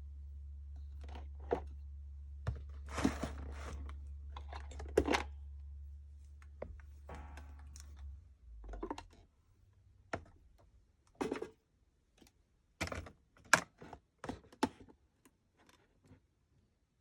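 A series of small clicks, taps and short scrapes from hands handling small parts on a workbench, over a low steady hum that stops about eight seconds in.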